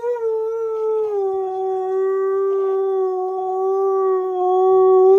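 Husky-malamute mix dog howling one long, unbroken note that drops slightly in pitch about a second in and then holds steady.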